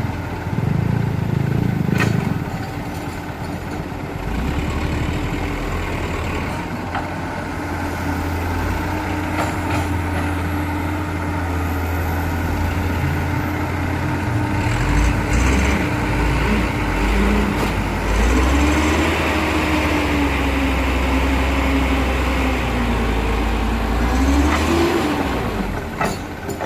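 Heavy diesel machinery engine running continuously, its pitch rising and falling in the second half as it works under varying load. A sharp knock about two seconds in and another near the end.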